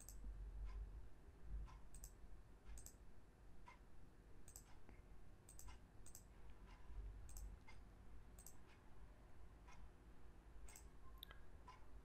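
Computer mouse clicking: faint single clicks and quick pairs at irregular intervals.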